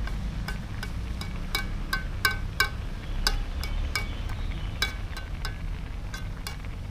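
Metal spoon clinking against the sides of an aluminium wok while stirring noodles in boiling water: irregular ringing clinks, about two a second, over a low steady rumble.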